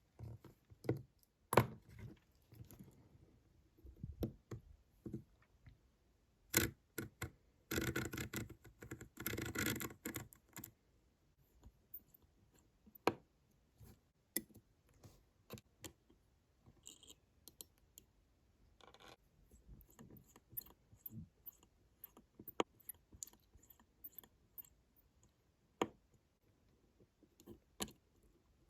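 Small hand tools and watch parts clicking and scraping during work on a Waltham pocket watch movement. The clicks come irregularly, with a longer stretch of scraping about eight seconds in.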